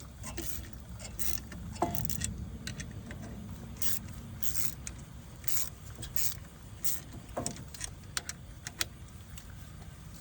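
Metal hand tools clinking and scraping as a brake pad spreader and ratchet are handled and fitted at the brake: irregular clicks and short scrapes over a low background rumble.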